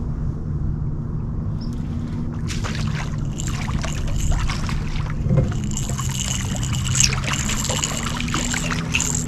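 A hooked blue catfish thrashing and splashing at the water's surface beside the boat as it is reeled in. The splashing starts a couple of seconds in and grows more frequent, over a steady low hum.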